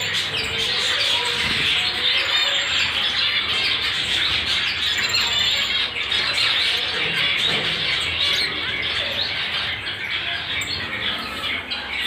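Many caged breeding birds, finches among them, chirping and squawking all at once in a dense, unbroken chorus of calls.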